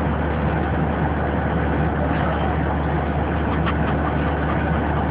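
Steady drone of an airliner's engines and air noise heard inside the passenger cabin in flight, a constant low hum under an even rush.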